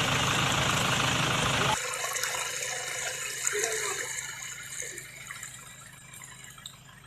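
Fast-flowing flash-flood water rushing in a canal. A loud steady rush cuts off abruptly about two seconds in, leaving a quieter flow that gradually fades.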